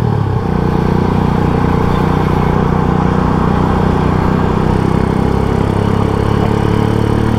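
Custom 1997 Honda GL Pro's single-cylinder four-stroke engine running while the bike is ridden at a steady pace, with road and wind noise. The engine note shifts just after the start, then holds steady.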